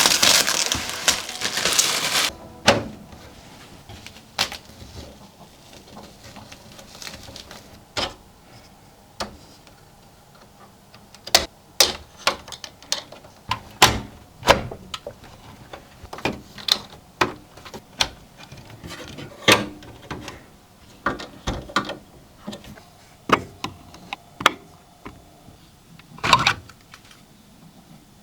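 Irregular sharp clicks and knocks of computer parts being handled and fitted into a PC case, some in quick pairs, with the louder ones coming in the second half. Background music ends about two seconds in.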